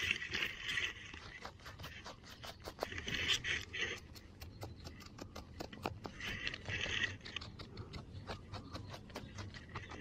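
Fingers scraping and brushing through dry, gravelly dirt in three short scratchy bouts, with small stones clicking and trickling in between.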